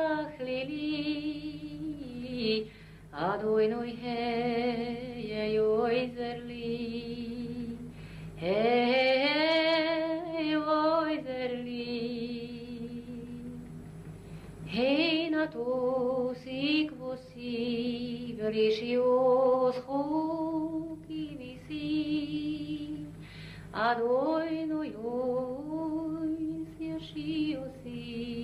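A woman singing a slow song in long phrases, holding notes with a wavering vibrato and sliding between pitches, with brief breaths between phrases.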